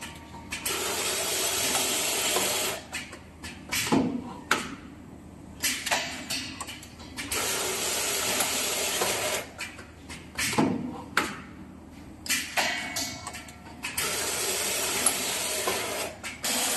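Automatic laser welding machine for diamond saw blades running through its cycle: a steady hiss lasting about two seconds, then a run of mechanical clicks and clunks, the pattern repeating three times about six and a half seconds apart.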